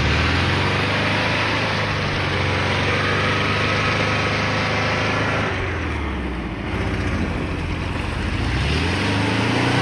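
ZAZ-968M's air-cooled V4 engine running hard at high revs as the car pushes through mud, over a steady hiss of mud and water splashing at the wheels. The revs fall off about six seconds in and climb again near the end.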